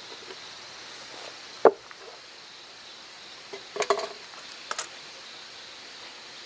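Wood and hand tools being handled on a log workbench: one sharp wooden knock, a short rattle of knocks about two seconds later, then a quick double click. A steady high insect hum runs underneath.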